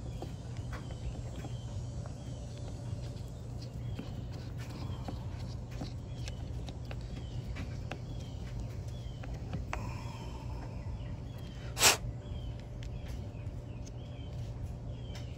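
Steady low hum with a faint high chirp repeating about twice a second, and one sharp click about twelve seconds in.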